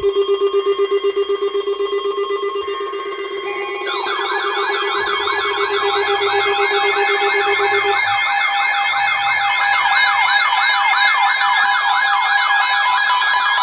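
Several electronic alert alarms sounding at once, most likely weather alert radios going off. A steady pulsing low tone runs for about the first eight seconds. From about four seconds in, many warbling siren tones at different pitches pile on top of it and carry on.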